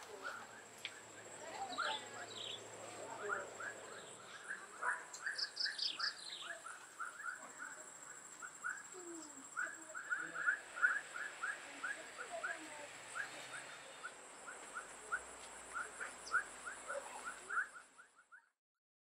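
Forest ambience: a bird chirping short calls over and over, a couple of quick higher falling calls about five seconds in, and a steady high-pitched insect whine behind. It all fades out near the end.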